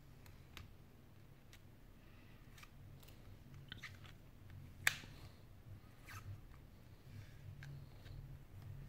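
Scattered small clicks and crackles of fingers handling and pressing on a Sony Xperia Z5 Compact's bare midframe, with one sharp click about five seconds in.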